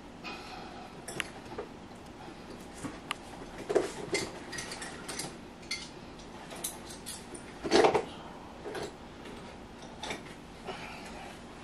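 Irregular clicks, clinks and knocks of small hard objects being handled and set down, with the loudest knock about eight seconds in.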